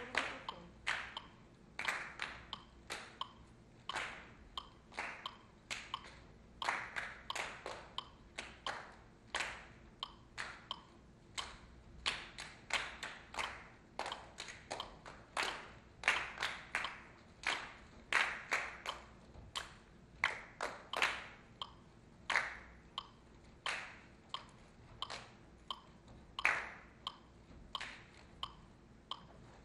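A sparse, uneven rhythm of sharp percussive claps or taps, about two a second, each with a short ring, some strikes louder than others.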